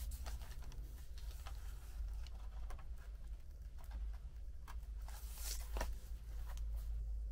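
Small clicks and taps of plastic scale-model parts being handled and pressed into place in the model's hull, with a brief rustle about five and a half seconds in, over a steady low hum.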